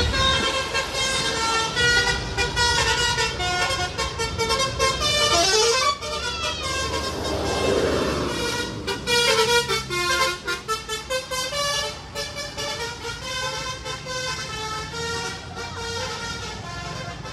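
Bus 'telolet' multi-tone musical air horn (Basuri) playing tunes: quick runs of short stepped horn notes, with a swooping pitch glide about six to eight seconds in.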